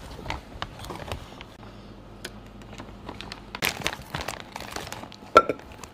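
Handling of food and packaging during barbecue prep: crinkling and rustling with scattered light clicks, a busier patch of crackling a little past halfway, and one sharp clink near the end.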